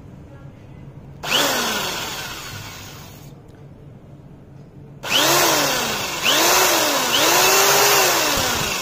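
Buildskill BED1100 10 mm pistol-grip electric drill with a wood bit, its motor triggered in short bursts and running free. One burst about a second in winds up and coasts down. From halfway through comes a quick run of four or so bursts, each whining up and then slowing, the last held a little longer.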